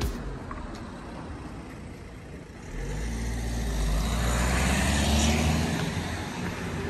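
A car driving past on a tarmac street: engine rumble and tyre noise swell from about three seconds in, peak about two seconds later and fade near the end.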